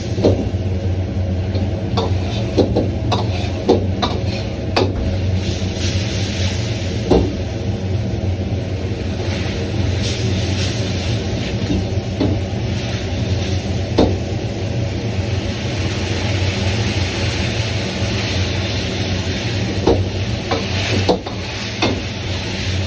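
Mapo tofu frying in a wok over a gas burner: a steady low burner roar under sizzling, with sharp knocks and scrapes of the ladle against the wok every few seconds.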